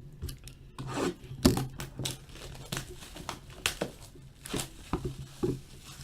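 Plastic wrapping being torn and crinkled off a sealed box of hockey cards as it is opened: an irregular run of sharp crackles and rustles.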